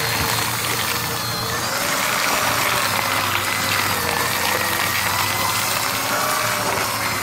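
Electric paper shredder with its top cover off, its motor and twin cutting cylinders running steadily as they chew through glossy advertising flyers.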